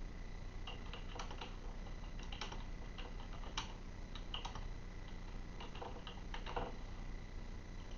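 A series of faint, irregular light clicks and taps, about a dozen spread over several seconds, over a faint steady high tone.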